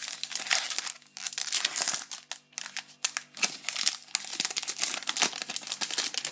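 Foil wrapper of a Pokémon trading-card booster pack being torn open and crinkled in the hands, a dense run of sharp crackles.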